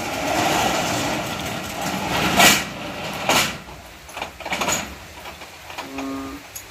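A folding steel accordion gate dragged shut with a long metallic rattle, then two loud clanks as it closes, followed by small clicks as it is locked.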